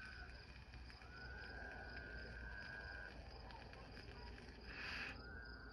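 Toads trilling, by the listener's own guess, though in a call they don't recognise: long, even, high trills of about two seconds each, one starting about a second in and another near the end. A steady high chirring of insects runs underneath, and a short hiss comes about five seconds in.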